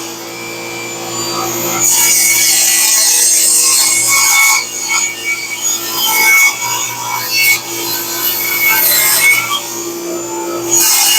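Table saw ripping through a thick black walnut slab: the motor hums steadily under the high hiss of the blade cutting, which swells and eases several times as the slab is pushed through.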